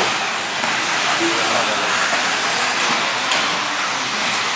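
A pack of electric 4wd RC buggies with 13.5-turn brushless motors racing on a clay track: a steady, high hissing whine of motors and tyres with no single car standing out.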